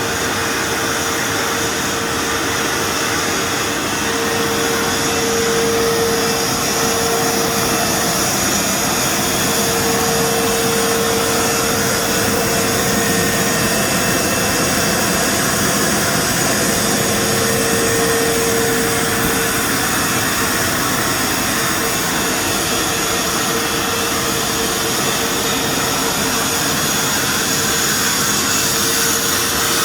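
Automatic CNC sandblasting machine running: a steady, loud hiss of compressed air and abrasive, with a faint humming tone that swells and fades a few times.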